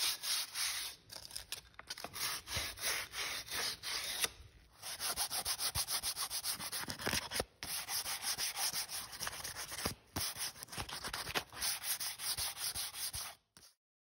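Plywood being sanded by hand: quick back-and-forth scraping strokes, a few a second, broken by short pauses, cutting off abruptly near the end.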